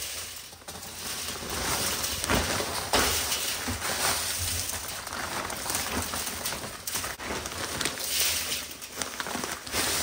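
Dry multi-purpose sand pouring out of a bag into a steel 55-gallon drum packed with tubing, a continuous granular hiss with the bag's plastic crinkling and a few light knocks.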